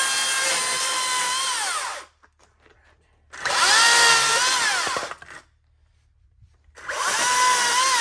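Makita cordless chainsaw running on two 18-volt batteries, cutting slab wood in three short bursts. Each is a high electric motor whine whose pitch sags toward the end, then winds down when the trigger is let go.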